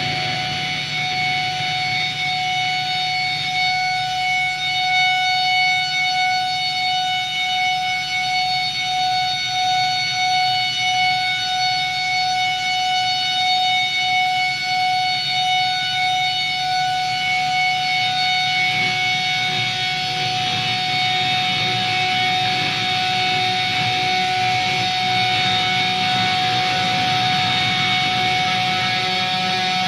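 Black metal recording: a long, steady held tone over a noisy, distorted drone. The noisy wash grows thicker in the second half.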